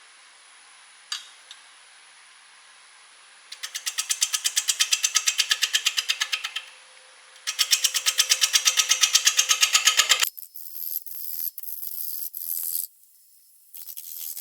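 Wood lathe running with a steady hum while a bowl gouge cuts a wet walnut blank in two stretches of rapid, rhythmic pulsing. About ten seconds in, the lathe hum cuts off and an intermittent hissy scraping follows.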